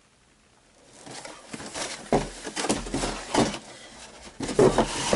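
A plastic bag rustling and crinkling as it is pulled out of a cardboard box, with a few sharp knocks, starting about a second in.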